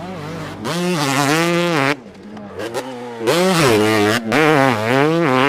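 Motorcycle revving sound for a toy motocross bike, its pitch rising and falling like an engine being blipped, in two long runs with a short lull between them.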